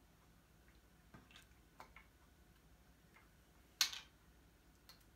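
Small toys and slime pots being set down on a hard, glossy tabletop: a few faint clicks and taps, then one sharper click near the end.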